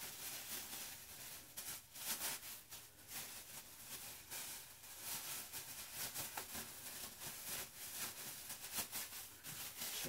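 Thin disposable plastic gloves crinkling and rustling in irregular crackles as they are pulled onto the hands.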